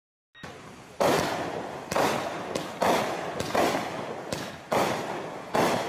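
Raccoon Fireworks 'Breakthrough' 200-gram consumer fireworks cake firing a rapid volley of shots. A sharp bang comes roughly every second, each with a short fading tail, starting about a second in after a brief silent gap.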